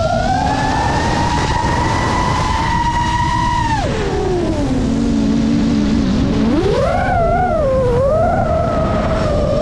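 FPV quadcopter's brushless motors whining, over a low rush of wind. The pitch falls steeply about four seconds in as the throttle is cut for a dive, stays low, then climbs again with a wavering rise about seven seconds in as the throttle comes back on.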